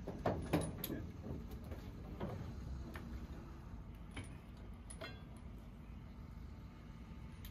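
Irregular metallic clinks and knocks on a steel boat, bunched in the first second and then sparser, dying away after about five seconds, over a low steady rumble.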